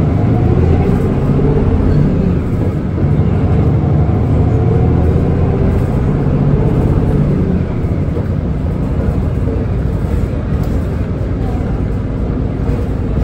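Hino Blue Ribbon City Hybrid bus running along the road, with steady engine and road noise as heard inside the cabin.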